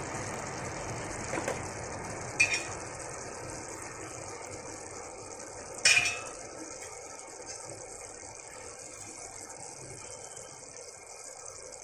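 A pot of rice bubbling and hissing as it simmers, with a few short clicks and knocks as whole stuffed brinjals are pushed down into it; the loudest knock comes about six seconds in.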